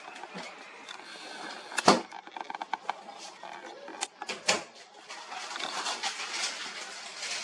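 Handling noise on a handheld camera's microphone: rustling, with three sharp knocks about two, four and four and a half seconds in.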